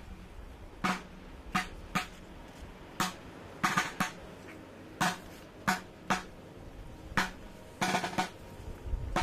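Procession snare drums beating a slow, uneven march: single sharp rattling strokes about once a second, some of them doubled.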